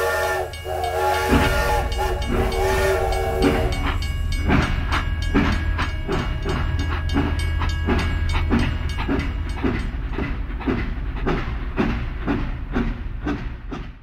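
A multi-tone horn or whistle chord sounding in three long blasts, then a steady rhythmic clatter about twice a second over a continuous low hum, like a train's horn followed by wheels clicking over rail joints.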